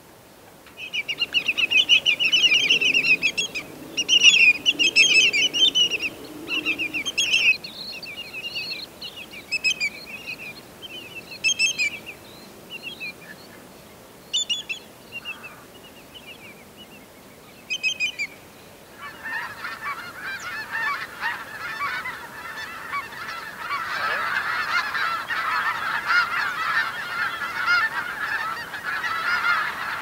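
Sharp, high-pitched bird calls in rapid bursts of a second or two each, thinning out and more spaced after about ten seconds. At about nineteen seconds they give way to a large flock of snow geese honking together in a dense, continuous chorus that swells toward the end.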